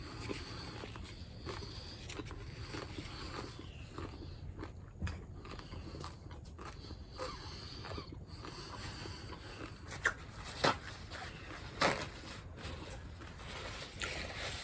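Faint chewing of dry tortilla chips, with three short sharp clicks about ten to twelve seconds in.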